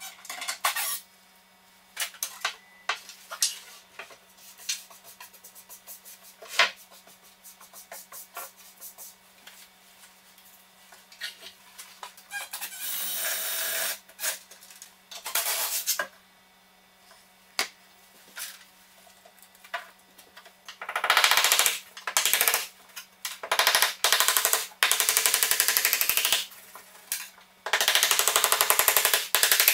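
Hand and power tools at work on a kitchen base unit: scattered clicks and knocks, then a cordless driver running for about two seconds. In the second half come long loud bursts of rapid hammering, a hammer driving a scraper in against the wall.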